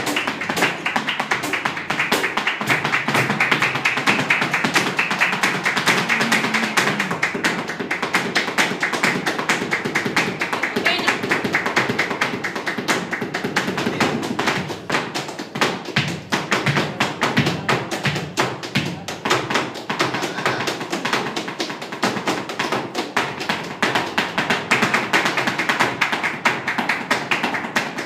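Flamenco alegrías: a dancer's rapid zapateado footwork, dense heel and toe strikes on a wooden stage, over palmas handclaps and flamenco guitar. The footwork eases briefly about halfway through, then picks up again.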